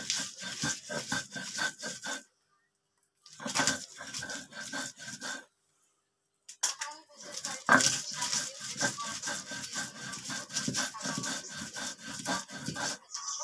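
Stone roller grinding coriander leaves, garlic and green chillies on a flat grinding stone (shil-nora): quick back-and-forth rubbing strokes, several a second, with two short pauses. About eight seconds in there is one sharp knock of stone on stone.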